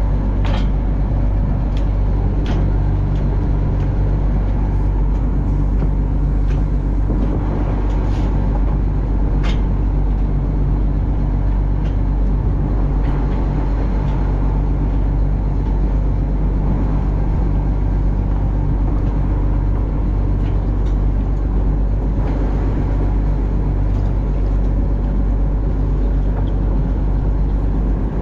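An engine running steadily at a constant speed, a loud low drone with a few faint clicks over it.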